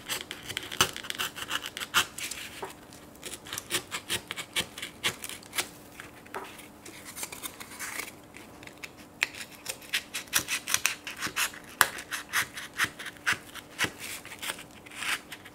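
Craft knife blade cutting through foam core board, a quick run of short scratchy strokes as the blade is drawn along the outline, coming in several runs with brief pauses.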